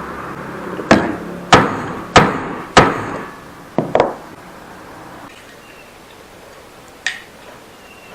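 Hammer blows on wood: four hard strikes about two-thirds of a second apart, two more a second later, then a single lighter tap near the end.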